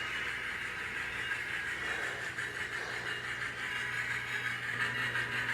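Athearn Challenger 3985 HO model steam locomotive running with its DCC sound decoder playing through its small onboard speaker: a steady running sound with a low hum underneath.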